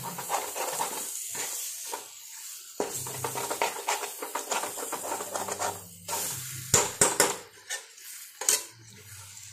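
Metal spatula scraping and knocking against a metal kadai while chicken pieces in masala are stirred over a steady sizzle, with a few sharp clanks in the second half. The scraping loosens masala stuck to the bottom of the pan.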